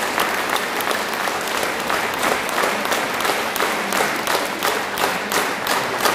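Concert audience applauding, a dense patter of many hands clapping. Near the end the clapping falls into a steady rhythm of about three claps a second.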